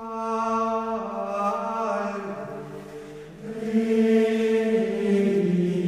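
Background music of slow sung chant: long held vocal notes that step to a new pitch every second or so.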